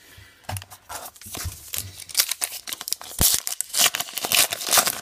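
A baseball card pack's wrapper being crinkled and torn open by hand. The crackling grows louder and busier over the second half, with a single soft knock about three seconds in.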